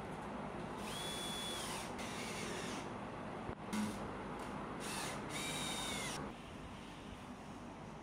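Cordless drill driving screws into rough-cut lumber framing, in about five short runs of a second or so, its motor whine rising as each run starts.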